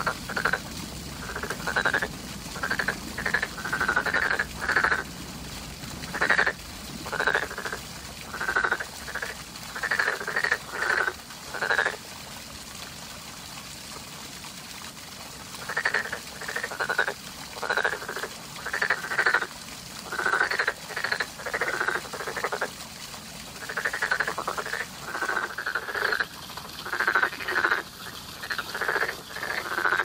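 Frog croaking in runs of short calls, several a second, pausing for about four seconds about halfway through before starting again.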